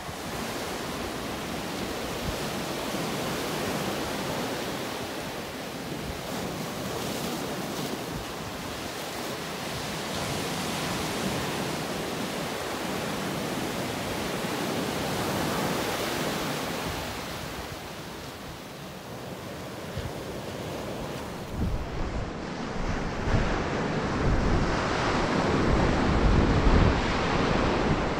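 Pacific Ocean surf breaking and washing up a rocky sand beach, a steady rush that swells and ebbs with the waves. Over the last several seconds, wind buffets the microphone in gusts over the surf.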